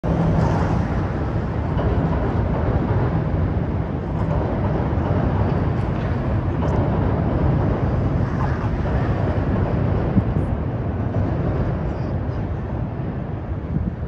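Steady low rumble of city traffic, a dense even wash of vehicle noise with a faint engine hum in it.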